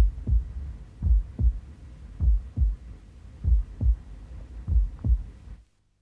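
Suspense sound effect of a slow heartbeat: low paired thumps repeating about every 1.2 seconds over a low drone. It cuts off abruptly near the end.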